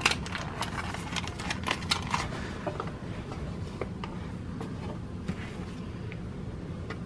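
A clear plastic earbud clamshell and its cardboard sleeve being handled and slid together, making a run of light clicks and crinkles over the first two seconds or so. After that come only a few faint ticks over a low, steady room hum.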